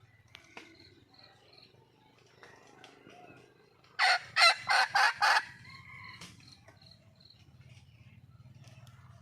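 Red junglefowl hen calling: a quick run of five loud, sharp calls about four seconds in, over faint high bird chirps and a low steady hum.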